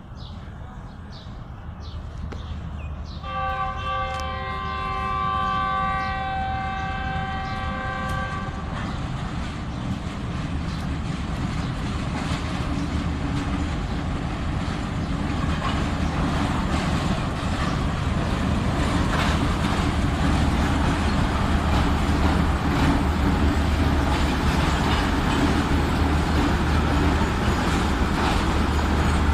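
Diesel locomotive sounding its horn, a chord of several tones held for about five seconds, as the train approaches. Then its engine drone and the rumble of the train grow steadily louder as it pulls in, with wheels clicking over the rail joints.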